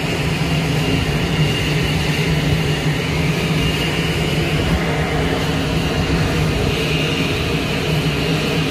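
Steady rumble of turbulent water pouring out below a dam, with a low steady hum running through it.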